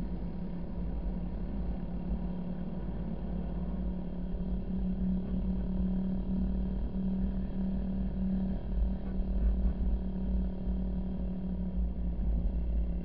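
Car driving on a sand beach: a steady low rumble with an even engine drone, growing a little louder partway through.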